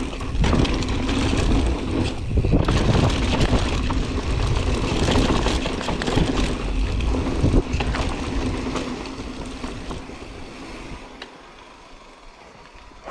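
Enduro mountain bike riding down a rooty dirt trail: tyres rolling over dirt and roots with the chain and frame rattling, a dense run of knocks and clatter. It quietens about ten seconds in as the bike slows on a smoother, flatter stretch.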